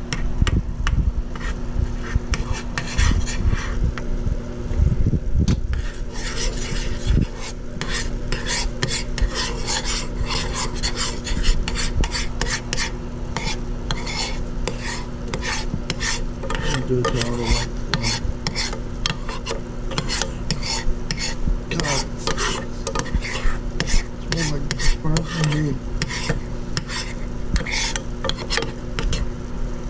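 Metal spoon stirring and scraping in a small saucepan of bubbling, melted bubble gum: a continual, irregular run of clinks and scrapes against the pan, with sizzling from the boil. A steady hum runs underneath.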